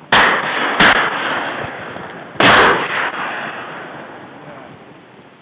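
Four shotgun shots at passing ducks, in two pairs about two seconds apart, each crack followed by a long rolling echo that dies away.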